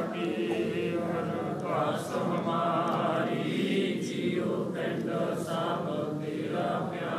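A group of voices chanting together in a devotional chant.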